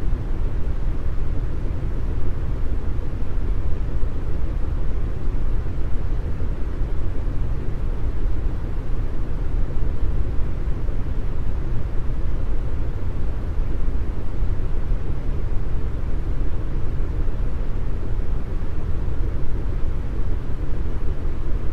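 Deep brown noise: a steady, unchanging rush of noise that is heaviest in the low rumble and thins out toward the top, with only a little hiss.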